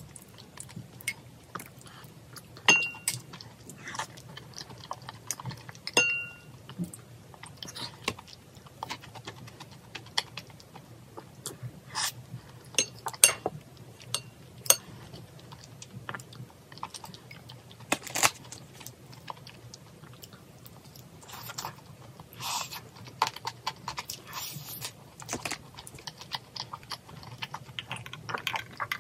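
Close-up mukbang eating sounds: chopsticks and a spoon clicking and clinking irregularly against a ceramic bowl and a pan, with soft chewing of rice porridge. Two clearer ringing clinks come about three and six seconds in.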